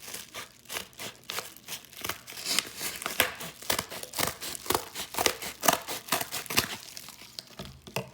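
Mail packaging being handled and torn open by hand: irregular crinkling, rustling and tearing, busier after about two seconds.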